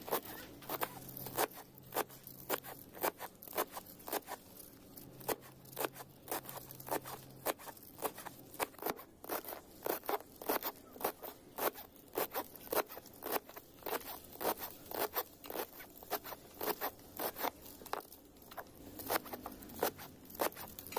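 Chef's knife chopping leafy greens on a plastic cutting board: quick, uneven chops, a few a second, each a sharp knock of the blade on the board.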